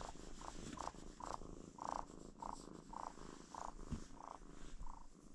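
Kitten purring softly while being stroked, the purr pulsing evenly about twice a second.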